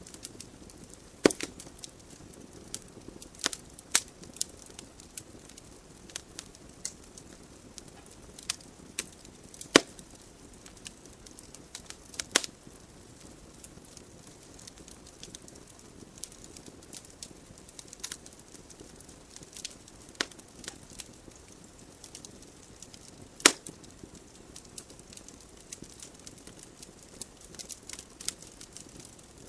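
Logs burning in a wood fireplace: irregular sharp pops and crackles over a soft, steady hiss of the flames, with three louder pops standing out.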